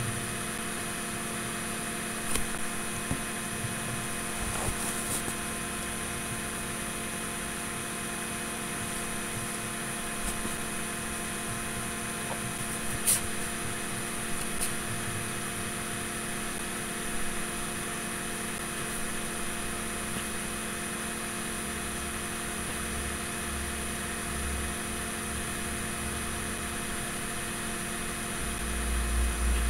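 Steady electrical hum with several constant tones over a faint hiss, broken by a few faint clicks. A low rumble builds near the end.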